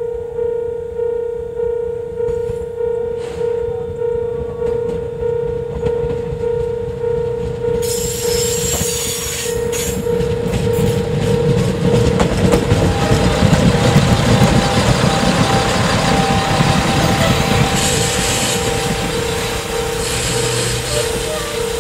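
Level-crossing warning bell ringing steadily, about two strokes a second, while a diesel railcar approaches and passes. The railcar's engine and wheels on the rails come in about eight seconds in, grow loud, and peak a little after midway before easing off.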